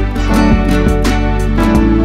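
Background music with plucked acoustic guitar and a steady beat.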